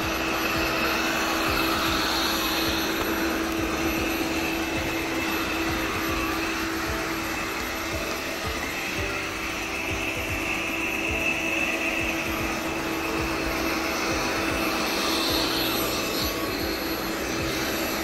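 Lydsto R1 robot vacuum running steadily while cleaning, its suction fan giving an even whirring hum with a constant high whine.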